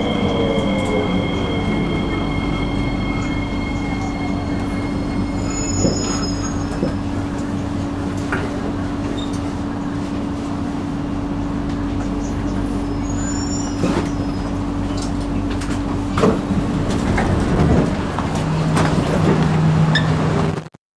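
Inside a Singapore MRT East-West Line train running through a tunnel: steady rumble of wheels on rails with a steady motor hum, which stops about three-quarters of the way in. The sound cuts off suddenly just before the end.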